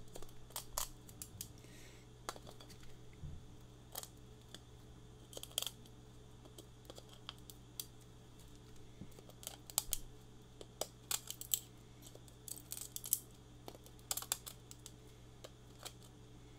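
Hand snips cutting away leftover 3D-printed plastic support material: irregular sharp clicks and small snaps as pieces are cut and broken off, coming in clusters. A faint steady low hum runs under them.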